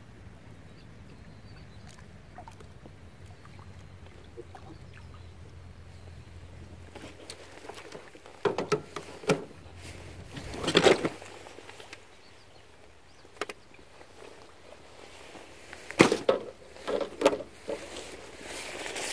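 Hooked crucian carp splashing at the water's surface in short bursts while being played, twice in the middle and several times near the end, with the loudest splash a little before halfway.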